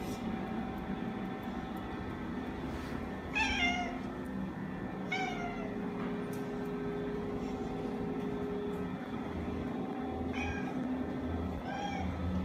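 Domestic cat meowing four times, short calls that fall in pitch: one about three seconds in, one a couple of seconds later, and two close together near the end, over a faint steady hum.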